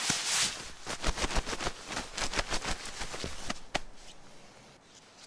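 Nylon shell of a Snugpak sleeping bag rustling and crinkling as it is handled and spread out by hand. The rustles come thick and fast, then die down about four seconds in.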